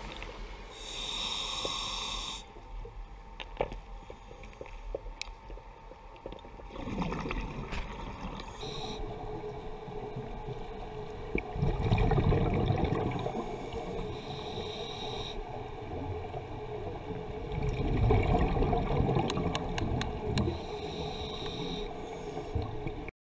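Scuba diver breathing through a regulator underwater: a short hiss of inhalation about every six seconds, each followed by a louder gurgling rush of exhaled bubbles. The sound cuts off abruptly near the end.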